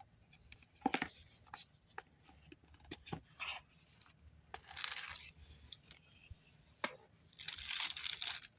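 Small knife box and its wrapping being opened by hand: scattered light taps and clicks, with a few short bursts of rustling and tearing, the longest and loudest near the end.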